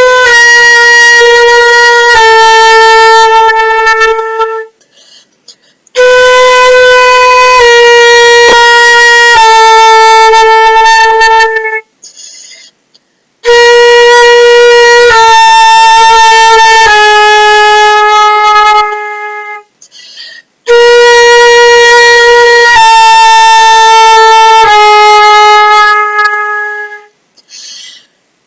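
Concert flute playing slow, sustained long tones in a descending chromatic tone exercise. Four phrases each start on B and step down by semitones, a little lower each time, with short breaths between them.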